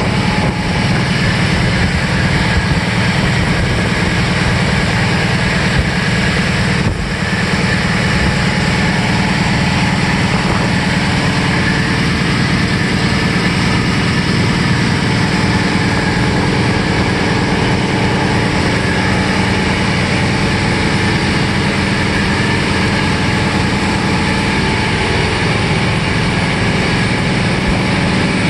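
An engine running steadily, loud and unchanging, with a brief dip about seven seconds in.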